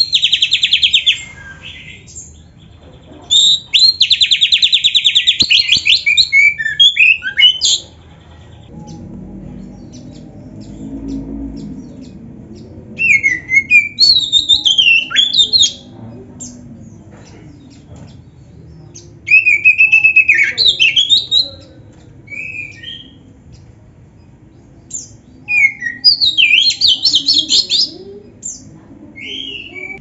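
Black-breasted Oriental magpie-robin singing: five loud phrases of fast trills and gliding whistles, each one to four seconds long, with pauses between them.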